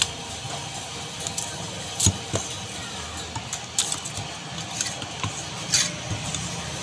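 Large curved knife cutting a katla fish on a wooden stump chopping block: irregular sharp knocks and clicks of the blade against the wood and fish, the loudest about two seconds in, over a steady low background hum.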